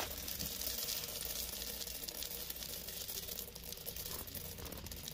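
Faint, steady trickle of running water, over a low steady hum.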